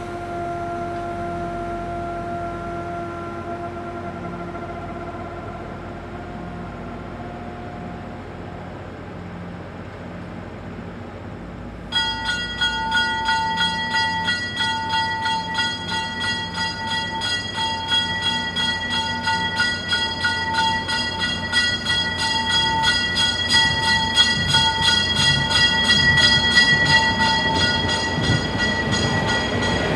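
MBTA commuter rail train pulling slowly into the platform. A steady tone fades out over the first several seconds. Then, about twelve seconds in, the train's bell starts ringing in rapid repeated strokes and grows louder as the train draws up alongside.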